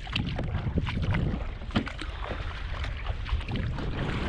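Footsteps wading through shallow water over soft mud: irregular splashes, a few each second, over a low rumble of wind on the microphone.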